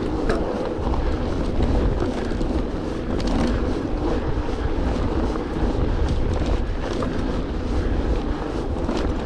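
Mountain bike riding along a trail: wind buffeting the microphone over a steady rumble of tyres and bike, with scattered small clicks and rattles.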